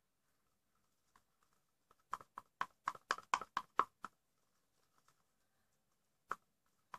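A quick run of about ten light knocks in two seconds, then two single knocks near the end: a utensil tapping against the bowl while glue and food colouring are stirred for slime.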